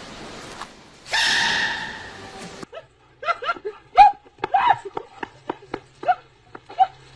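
A loud, drawn-out animal cry that cuts off suddenly, then a quick run of short, yelping animal calls.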